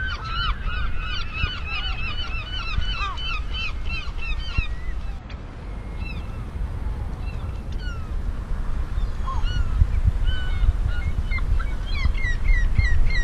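A flock of birds calling in rapid, repeated squawks. The calls are thick at first, thin out in the middle and pick up again near the end, over a steady low rumble.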